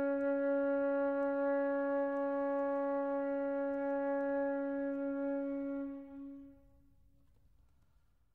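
Solo concert flute holding one long low note, a D-flat, after a step down from the note above, and fading away to close the piece. The note dies out about six to seven seconds in, leaving a brief room echo.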